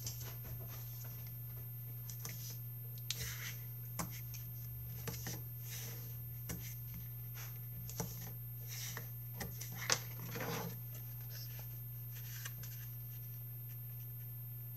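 Card and double-sided tape being handled while a layered card is assembled: scattered light clicks, taps and short rustling swishes of paper, the sharpest click about ten seconds in, over a steady low hum.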